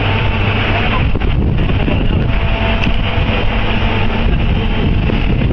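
A heavy machine's engine running steadily and loudly, with wind buffeting the microphone.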